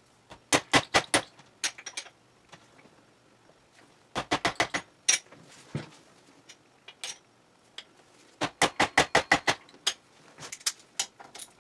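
Ratchet wrench clicking in several short runs of rapid clicks, working the cylinder nuts of a Suzuki RM125 two-stroke engine loose.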